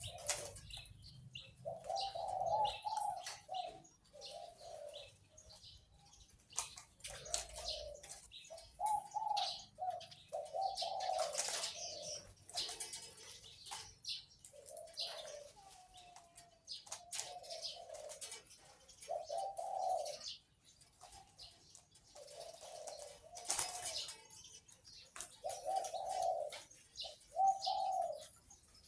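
A caged zebra dove cooing in short phrases of a few notes every couple of seconds, in the deep voice prized in Thai dove breeding, with other small birds chirping behind it.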